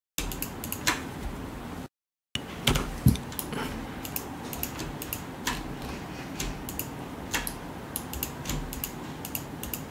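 Irregular clicking of a computer mouse and keyboard over a steady background hiss, with two louder knocks about three seconds in. The hiss cuts out completely twice, briefly, near the start.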